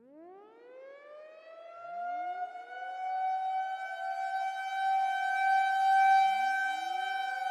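Civil defense warning siren winding up from a low pitch to a steady high tone and growing louder. More sirens begin winding up behind it about two seconds in and again near the end.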